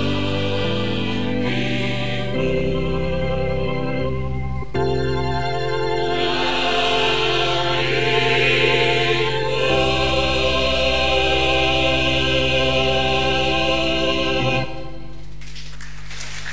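Church choir singing with organ accompaniment, held chords that close out the anthem. About fifteen seconds in the voices stop and only a low organ tone is left, with applause starting near the end.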